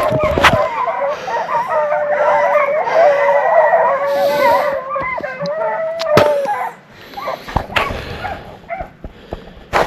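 A pack of hunting hounds bawling and chopping together at a tree, the sign that they have treed a bobcat. About two-thirds in the baying drops away to a few scattered calls among sharp snaps and clicks.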